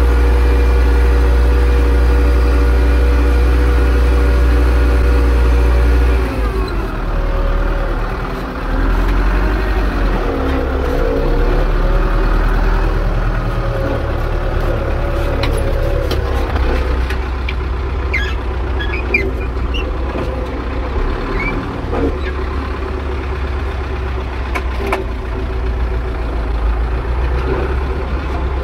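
Zetor 6245 tractor's four-cylinder diesel engine running steadily while ploughing; about six seconds in its note drops and wavers for several seconds, as the load changes, then settles to a steady run again.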